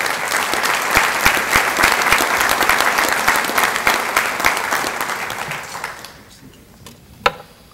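Audience applauding, many hands clapping together, dying away about six seconds in. A single sharp knock near the end.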